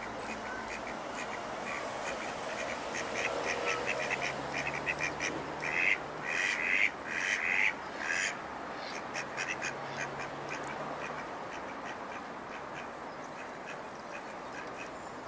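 Ducks quacking in rapid runs of short calls, loudest and most crowded about halfway through, then thinning out, over a steady outdoor hiss.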